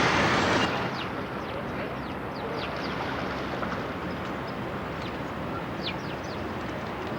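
A loud rush of traffic-like noise cuts off abruptly under a second in, as at a cut. Then comes a steady background hum with many short, high, falling bird chirps scattered through it.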